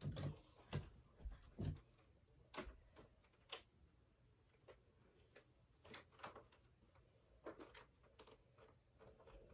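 Near silence: room tone with faint, irregular clicks and taps, a few close together in the first couple of seconds.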